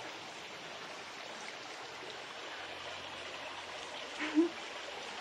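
Mountain river running over small cascades: a steady rush of water. A brief voice-like sound rises above it about four seconds in.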